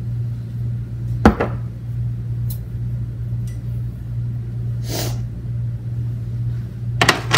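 Kitchen handling sounds while salt and pepper go onto chicken: a sharp knock about a second in, a brief shaking rasp around five seconds in, and a couple of clicks near the end, over a steady low hum.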